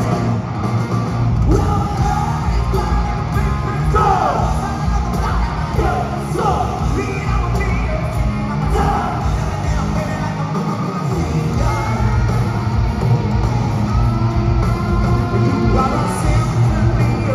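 Hard rock band playing live: electric guitars, bass guitar and drums, with a singer's high, yelled vocal lines that slide in pitch, strongest in the middle.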